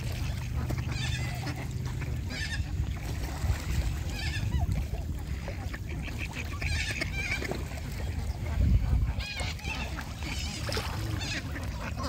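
Geese honking repeatedly, short calls every second or two, over a steady low rumble, with a louder low thump about nine seconds in.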